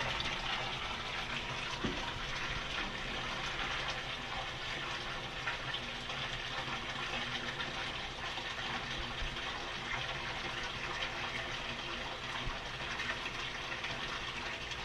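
Water from an aquaponic grow bed's bell siphon draining down into the tank below, a steady rushing splash of falling water, with a steady faint hum underneath.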